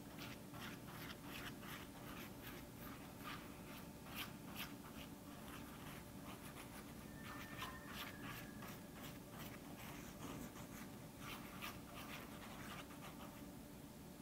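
Faint, irregular scratching strokes of a toothpick swirling food colouring through a layer of shaving cream on wax paper.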